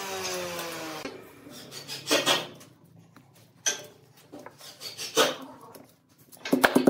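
Thin wire scraping and rubbing over bark and wood as it is pulled around a log, with a quick run of clicks near the end as pliers twist the wire tight. A falling whine dies away about a second in.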